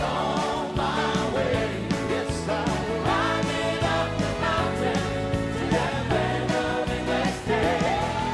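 Upbeat gospel song: a choir singing over a band with a steady beat.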